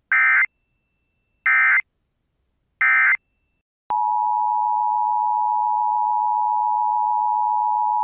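Emergency Alert System broadcast header: three short bursts of SAME digital data, about 1.3 s apart, then, about four seconds in, the steady two-tone EAS attention signal. Together they announce a severe thunderstorm warning.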